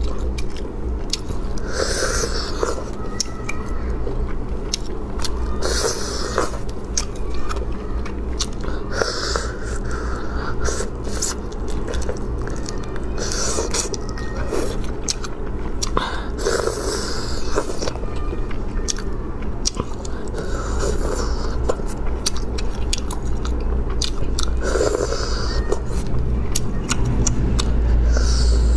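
Close-miked eating of spicy crayfish tails in broth: chewing and wet sucking bursts every second or two, over a steady low hum.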